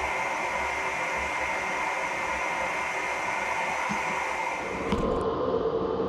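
Blower-fed gas forge running, a steady rush of air and burner. About five seconds in it cuts off abruptly to a different, lower steady hum.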